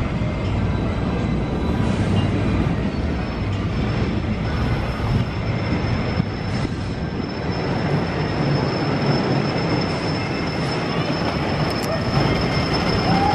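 Wooden roller coaster train rumbling along its track, with a steady high-pitched whine from about three seconds in.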